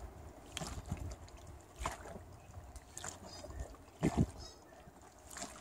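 Liquid sloshing inside a see-through plastic film-developing daylight tank as it is inverted back and forth for agitation, with irregular soft knocks from handling, the loudest pair about four seconds in.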